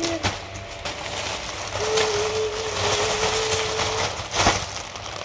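Packaging being handled and opened, rustling and crinkling, with a sharp snap about four and a half seconds in.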